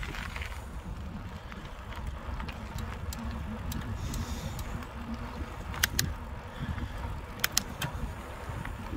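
Carrera Kraken hardtail mountain bike rolling on tarmac: a steady low rumble of tyres and wind on the handlebar-mounted phone. A few sharp clicks and rattles from the bike come through, the loudest as two quick pairs about six and seven and a half seconds in.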